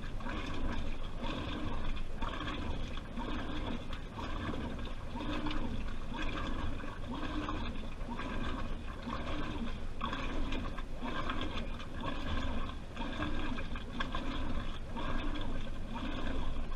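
Washing machine drum tumbling a wet load, water sloshing and splashing in regular surges a little more than once a second, heard from inside the drum.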